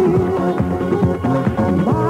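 Electronic dance music with a steady pulsing beat and a sustained, wavering melody line.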